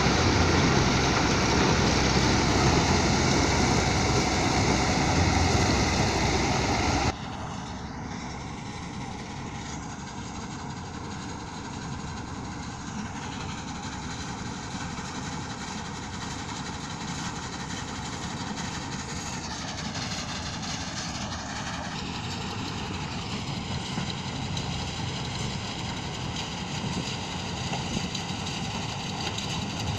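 Heavy farm machinery running steadily at corn harvest, loud at first and then dropping suddenly about seven seconds in to a quieter, steady engine hum.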